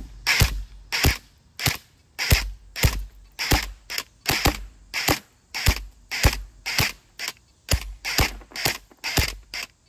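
Airsoft rifle fired semi-automatically, a quick run of about eighteen single shots, roughly two a second, with uneven spacing.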